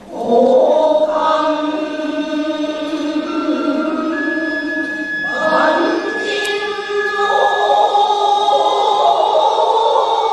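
A massed chorus chanting shigin, traditional Japanese recited Chinese-style poetry, on long held notes that waver and bend. The voices break off briefly at the start and then come back in full.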